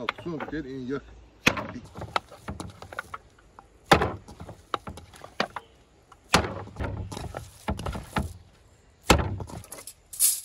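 Lump of minced lamb lifted and slapped down hard into a stainless-steel bowl, four heavy slaps about two and a half seconds apart. This is the mince being kneaded and firmed for lule kebab.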